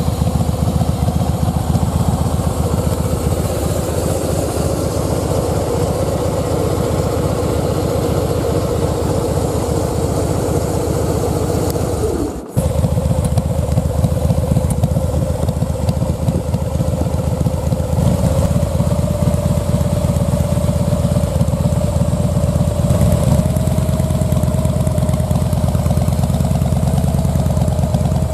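Harley-Davidson Breakout's V-twin idling through black aftermarket slip-on mufflers: a steady, lumpy low rumble at about 900 rpm. It cuts out briefly about twelve seconds in, then idles a little higher, at about 1100 rpm, near the end.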